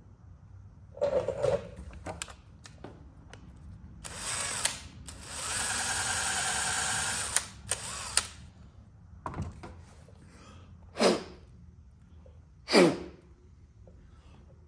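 A power drill runs steadily for about two and a half seconds, drilling out the damaged threaded hole to size for a coil thread insert. Clicks and knocks of tool handling come before it, and two short falling whooshes come near the end.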